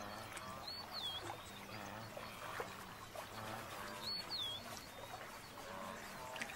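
Faint waterside ambience: soft lapping and trickling water, with a bird giving the same short whistled call twice, about a second in and again about four seconds in.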